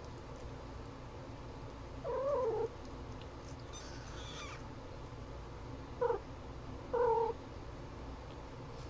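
Kittens mewing: three short, wavering mews, the longest about two seconds in and two briefer ones around six and seven seconds in, over a steady low hum.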